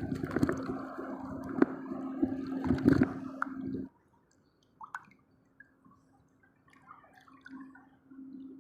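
Water splashing and dripping as a small caught fish is let back into the sea, with many small clicks. The splashing cuts off abruptly about four seconds in, leaving faint scattered bubbling.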